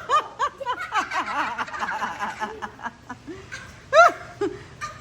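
Young children laughing and giggling in a quick run of short laughs, with one loud high squeal about four seconds in.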